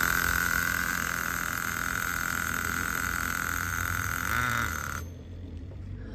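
Small nitro (glow-fuel) RC car engine running steadily with a high-pitched note, wavering briefly, then cutting off about five seconds in.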